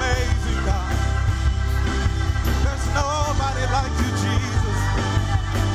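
Gospel praise song performed live by singers and a band, with a steady bass line and regular cymbal beats under the wavering sung melody.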